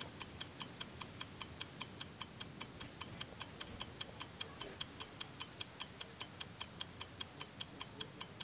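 Steady, fast clock-like ticking, about five ticks a second: a countdown timer effect marking a timed 15-second retrieve.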